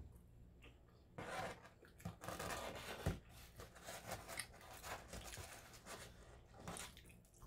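Close-miked chewing and crunching of crisp pizza crust: a run of short, irregular crackly crunches, with light rustling of paper.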